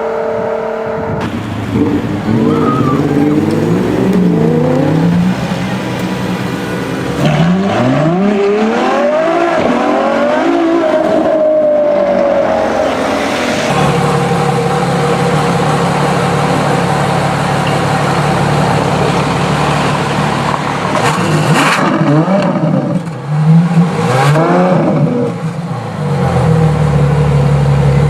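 Ferrari LaFerrari's V12 engine revving hard several times, its pitch sweeping up and falling back, with stretches of steadier running between. A couple of sharp cracks come in the last third.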